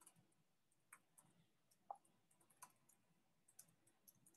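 Faint, irregular keystroke clicks from a computer keyboard being typed on, a few scattered taps rather than a steady run.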